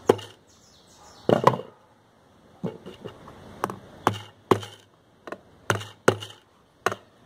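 Claw hammer driving a nail through a motorcycle tyre's rubber into a wooden slat. There are a few strikes, a short pause, then a steady run of blows about two a second, each a sharp knock with a dull thud.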